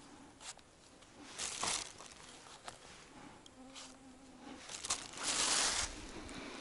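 A person moving through forest-floor litter, with scattered rustles and crunches, the loudest about five seconds in. An insect buzzes in a low hum for about a second near the middle.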